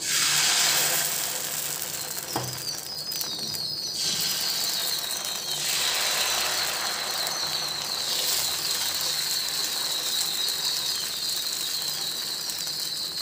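Sorghum dosa batter sizzling on a hot tawa as it is poured and spread in a spiral with a ladle: a steady hiss that starts suddenly as the batter hits the pan.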